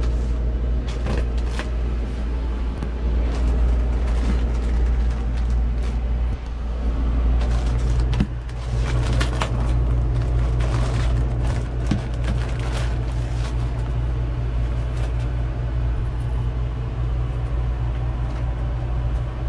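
Steady low drone of a boat's engine running, heard inside the head compartment, with crinkling and tearing of a plastic-wrapped pack of toilet tissue being handled and opened, which thins out after about twelve seconds.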